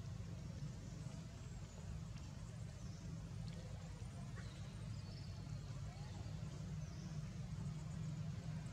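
Outdoor background noise: a steady low rumble with a few faint, brief high chirps scattered through it.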